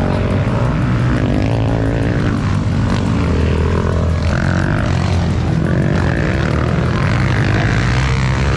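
Motocross dirt bike engines racing through a turn on a dirt track, several bikes overlapping, their pitch rising and falling as the riders work the throttle.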